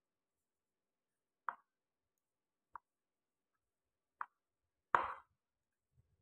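Four short, sharp knocks as a plastic rolling pin and dough are handled on a plate. The fourth, about five seconds in, is the loudest.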